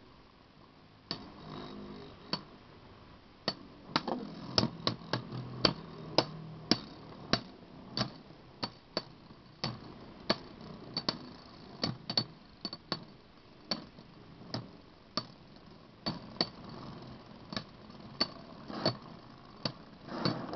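Two spinning Beyblade tops, one spinning right and one spinning left, repeatedly knocking into each other in a plastic stadium. Sharp clacks come at an irregular pace of about one or two a second and are thickest a few seconds in.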